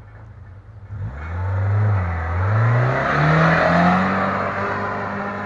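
Car engine revving hard in first gear as it launches up a steep climb: after about a second of idle the revs jump, sag briefly, then climb again and hold high, with a loud rushing noise over them that peaks in the middle.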